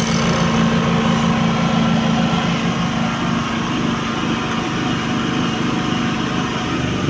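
Tsuzumi TIG5000iSDF dual-fuel inverter generator running steadily, a constant engine hum that eases off slightly after about three seconds.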